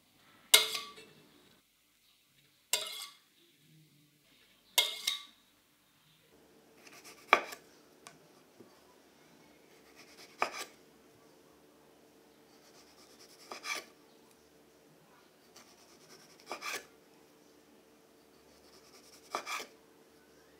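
Three sharp metal scrapes of a frosting spatula in the first five seconds, then five single knife cuts through strawberries onto a wooden cutting board, about one every three seconds.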